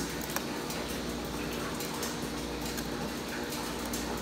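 Steady background hum with a few faint, light clicks.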